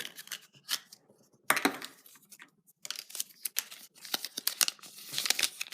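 Wrapper around a Kinder Surprise toy figure being torn open and crinkled by hand, in irregular crackling bursts with the sharpest tear about a second and a half in.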